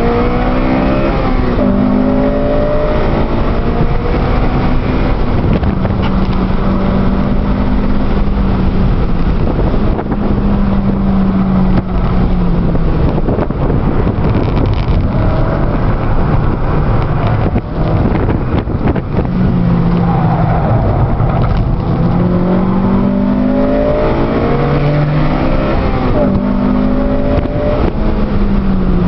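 Cabin sound of a stock 2008 Honda Civic Si sedan at speed on track: its 2.0-litre i-VTEC four-cylinder revs hard, the pitch climbing steeply and dropping back several times, with steadier stretches midway, over heavy wind and road noise.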